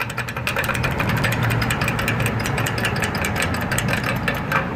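Crosswalk push button being pressed over and over, a quick run of many clicks, over the steady hum of idling traffic.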